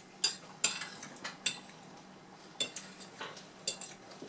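Metal forks and knives clinking and scraping on ceramic dinner plates while eating, about eight sharp irregular clinks.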